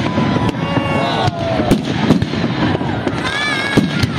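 Fireworks display: aerial shells bursting in quick succession, sharp bangs about two or three a second over a continuous rumble and crackle.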